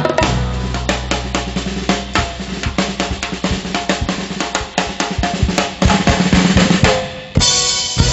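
Drum kit played live in a fast break of snare, tom and bass-drum strokes, a roll-like run of hits over a held low note at first, with a loud crash about seven seconds in.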